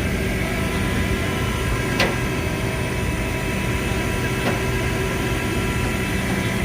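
Vehicle engine idling steadily with a constant hum. A sharp click comes about two seconds in and a fainter one about four and a half seconds in.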